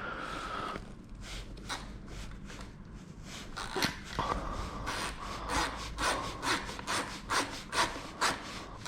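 A ratchet with a 10 mm socket is worked back and forth to undo a bolt holding a dirt bike's plastic panel. It comes in short strokes, about two or three a second, from about three and a half seconds in.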